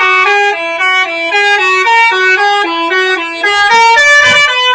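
Indonesian 'telolet' multi-tone bus horn playing a quick tune of stepping notes, then holding one long note from about three and a half seconds in.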